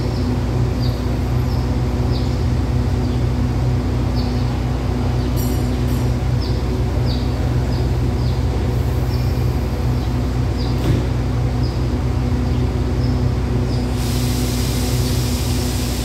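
Standing diesel passenger train's engines idling with a steady low hum, short high chirps sounding over it every second or so. A hiss comes in near the end.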